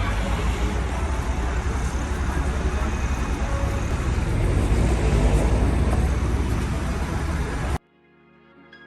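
City street traffic noise with a heavy low rumble, picked up on a phone microphone, cutting off abruptly near the end.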